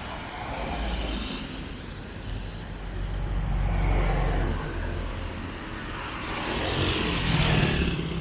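Motor vehicles passing close by on a street, engine sound swelling and fading: one passes about four seconds in and another near the end.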